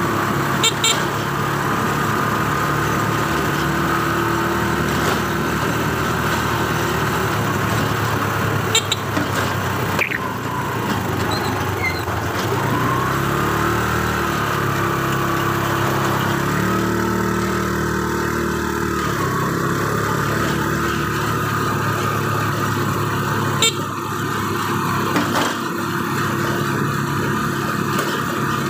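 A small motor vehicle's engine running steadily while riding, its pitch rising and falling for a few seconds partway through, with a few sharp knocks.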